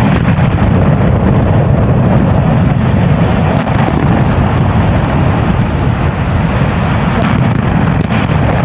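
Explosive demolition of concrete power-station cooling towers: a continuous loud, deep rumble of the blast and the towers collapsing, with a few sharp cracks in the middle and near the end.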